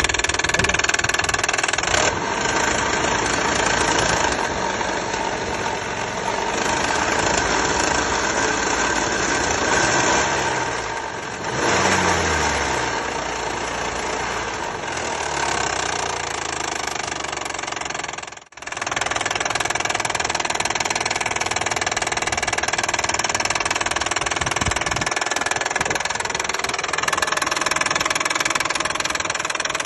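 Hyundai/Kia 3.5-litre G6CU V6 engine running with an internal knock. The revs fall away once around the middle, and the sound cuts out for a moment about two-thirds of the way through.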